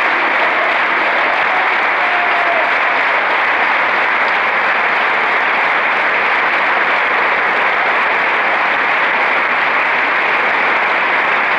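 A large crowd giving a standing ovation: loud, steady applause that does not let up.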